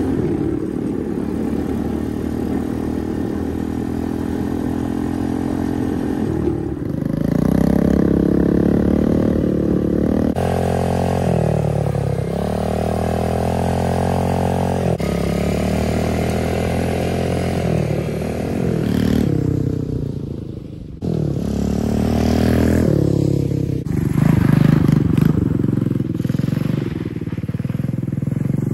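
XPRO 125cc dirt bike's single-cylinder four-stroke engine running under load while riding, its note rising as it is revved up through the gears and dropping back, several times over. Gravel crunches and sprays under the knobby tyres.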